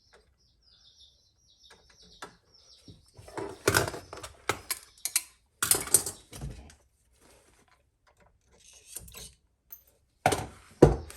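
Hand tools clicking and clattering against electrical wire while a ground wire is trimmed and fitted to an outlet, in two bursts of sharp clicks and knocks separated by a few seconds of quiet.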